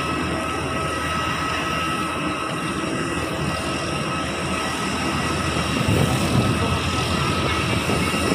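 Steady high whine of a parked jet airliner on the apron, with wind buffeting the microphone in a low rumble that gusts louder about six seconds in.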